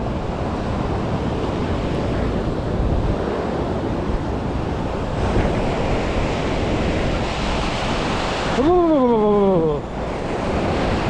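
Ocean surf washing up the beach, with wind buffeting the microphone; the wash grows louder about halfway through. Near the end a short cry falls in pitch.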